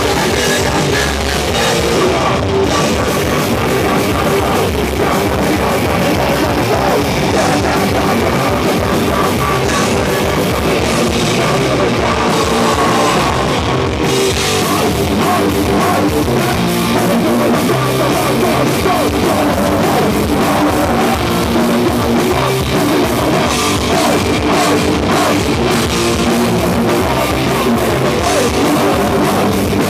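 Live punk/metal band playing loud and without a break: distorted electric guitars over a drum kit.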